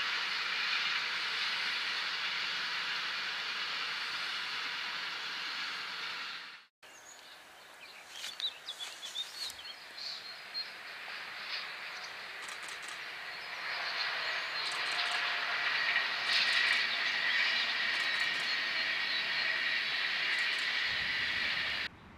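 Freight train wagons rolling past with a steady clatter and rumble, cut off abruptly about six seconds in. After the cut come a few short chirps, then an electric-locomotive-hauled passenger train approaches and passes, its rolling noise swelling with a steady whine.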